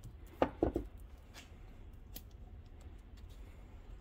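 Brush applicator scraping copper anti-seize onto the threaded aluminium body of a coilover shock as it is handled. There are two or three short scrapes about half a second in, then a few faint clicks.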